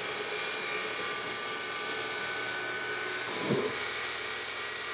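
Benchtop CNC mill running: a steady machine whine of several held tones over a hiss, with a brief louder swell about three and a half seconds in.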